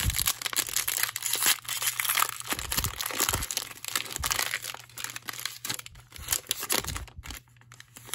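Plastic cello-pack wrapper of a 30-card NBA Hoops trading card pack crinkling and tearing as it is ripped open by hand. Dense crackling in the first few seconds, thinning to fainter rustles near the end.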